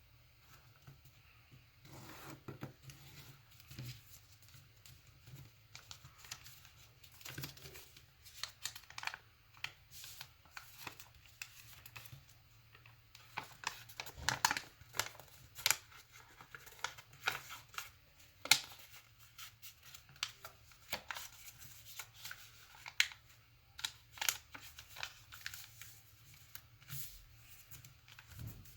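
A sheet of origami paper being folded and creased by hand: irregular crinkles and sharp crackles, busier and louder in the second half.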